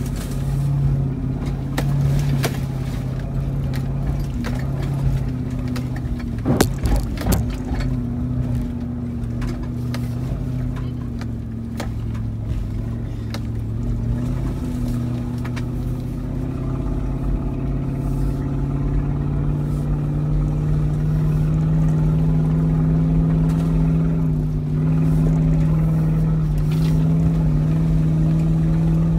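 Toyota Land Cruiser 100's V8 engine heard from inside the cabin, pulling steadily as it crawls up a rutted dirt track, its pitch slowly rising over the second half. A short cluster of knocks and rattles comes about seven seconds in as the truck goes over bumps.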